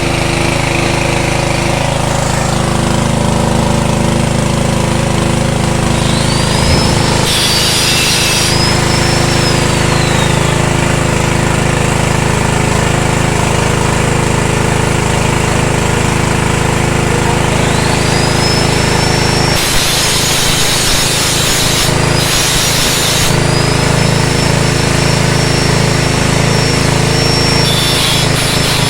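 A 7 hp petrol engine running steadily under load, driving an organic-waste shredder and pellet mill. A few stretches of harsher grinding noise come over the drone, about seven seconds in and again about twenty seconds in.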